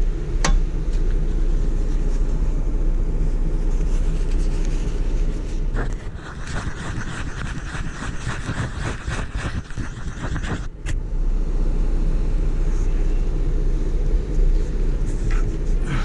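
Jeep Wrangler driving off-road, engine and drivetrain running with a steady low rumble. From about six to eleven seconds a rougher, crackling noise joins, with sharp clicks near the start and again around eleven seconds.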